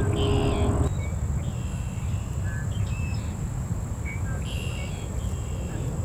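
Birds chirping in short calls every second or so over a steady low rumble, with a faint steady high-pitched whine. A louder hum stops abruptly about a second in.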